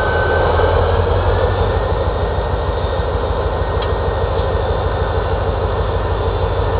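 EMD GP40 diesel-electric locomotive's 16-cylinder two-stroke diesel running close by, a steady low, throbbing rumble.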